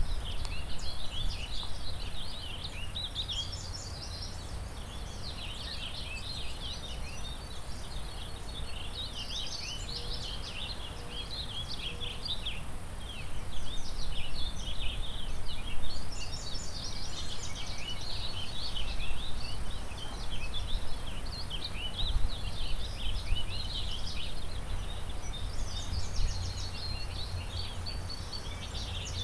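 A chorus of many songbirds singing and calling at once, with dense, overlapping chirps and trills throughout. Underneath runs a steady rush of river water and a low, gusting rumble of wind.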